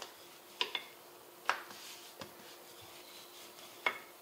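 Hands and a wooden rolling pin working a stuffed paratha dough on a floured counter: quiet rubbing with about six light knocks and clicks spread over four seconds.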